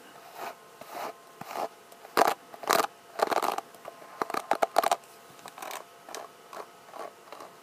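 A brush swept across the microphone in a series of short swishing strokes, quickest and loudest in the middle few seconds.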